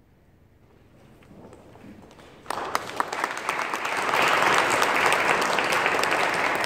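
Audience applause after the close of a brass quintet piece: near silence for the first couple of seconds, then clapping breaks out suddenly and swells to full within about a second and a half.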